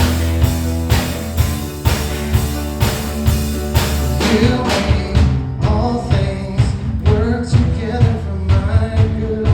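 Worship band playing a song with a steady drum beat and sustained bass. A voice starts singing about halfway through.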